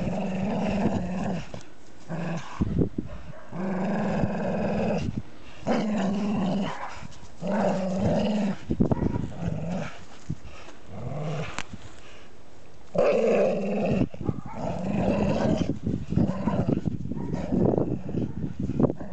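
Dogs growling in play as they tug against each other on a stick, in repeated growls of a second or so each with short breaks between.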